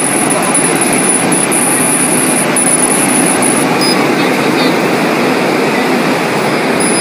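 CO2 laser marking machine running while it marks a sheet: a loud, steady rushing of its fans and smoke extraction, with a thin high whine that cuts in and out during the first few seconds.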